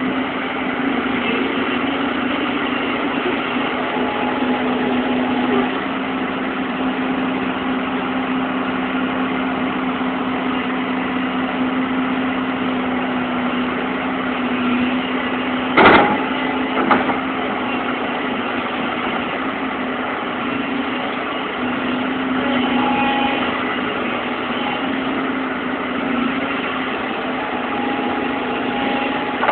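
Diesel engine of a heavy earth-moving machine running steadily, with a sharp knock about halfway through and a smaller one a second later.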